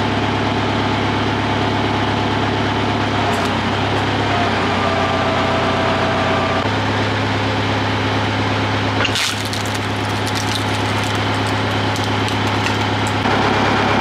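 Tractor engine running steadily while it powers a log splitter's hydraulic ram. Its note shifts as the ram takes the load, and a sharp crack comes about nine seconds in as the log splits.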